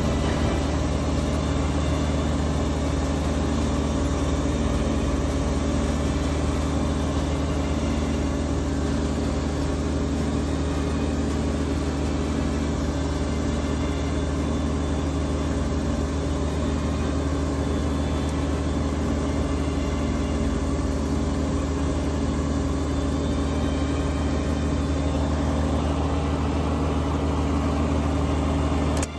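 Kubota BX2380 sub-compact tractor's three-cylinder diesel engine running steadily while it drives a front-mounted Kubota BX2816 snowblower that throws snow out of its chute.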